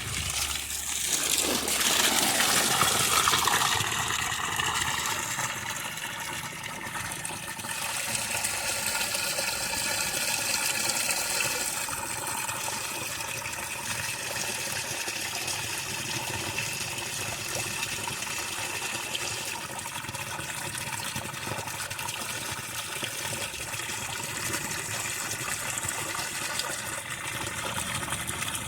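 Water gushing steadily into a drained fish tank as it is refilled with fresh water, loudest in the first few seconds.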